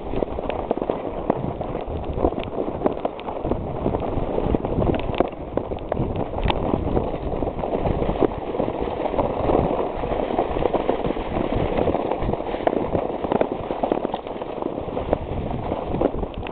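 Plastic sled sliding over snow close to the microphone: a steady rough scraping hiss with many small knocks and crackles.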